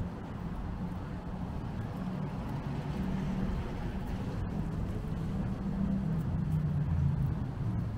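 Low, steady hum of motor traffic engines on the nearby city road, swelling slightly toward the end.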